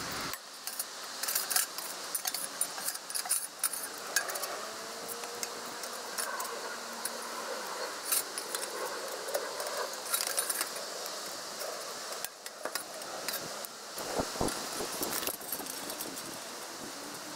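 Stainless-steel chimney pipe sections and wood-stove parts clinking and scraping as they are handled and slotted together: many sharp metallic clinks, with faint ringing scrapes.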